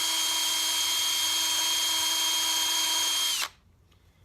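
Cordless drill spinning a small drum sander against a piece of purpleheart wood. It runs at a steady full speed, then is released about three and a half seconds in and winds down to a stop.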